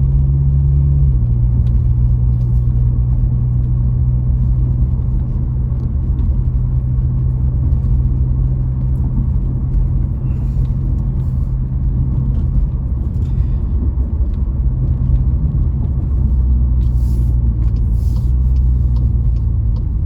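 Volkswagen Jetta Mk7 engine and exhaust, with muffler and resonator deleted, droning steadily in the closed cabin while driving. The pitch steps down a little about a second in as the automatic gearbox shifts up, then holds at an even cruise drone.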